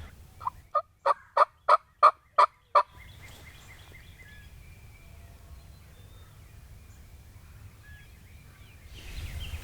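Turkey yelping: a run of about eight short, evenly spaced notes over a little more than two seconds, followed by faint outdoor background with small bird chirps.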